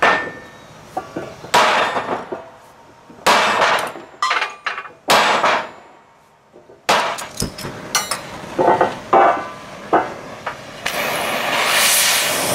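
A sledgehammer strikes a steel part on a steel welding table: four heavy ringing blows about a second and a half apart, followed by lighter clanks. Near the end comes the steady hiss of an oxy-acetylene cutting torch.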